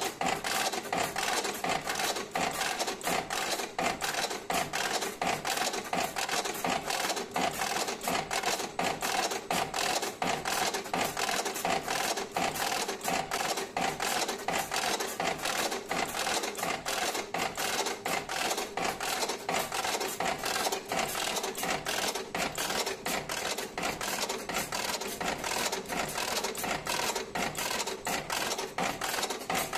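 Electric automatic cigarette filling machine with a servo motor drive running continuously, its mechanism clicking rapidly and evenly, several strokes a second, over a steady tone.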